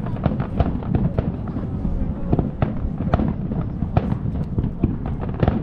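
Fireworks display: a rapid, dense barrage of bursting and crackling shells over a continuous low rumble.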